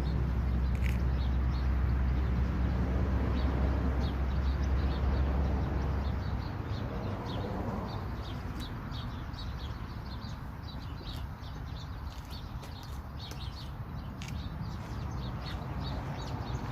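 Small birds chirping, many short high calls repeating throughout, over a low steady rumble that is strong for the first six seconds and then drops to a fainter background.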